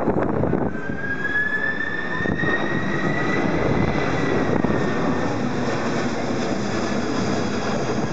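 Airbus A330-200 jet airliner flying low overhead with its landing gear down: a steady rush of engine noise carrying a whine that climbs in pitch over the first few seconds and then sags slightly.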